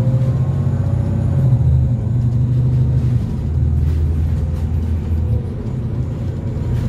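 Scania N280UB city bus's natural-gas engine heard from on board while the bus drives, a deep steady drone with a faint whine above it. The engine note steps down in pitch about three seconds in and eases off in level about five seconds in.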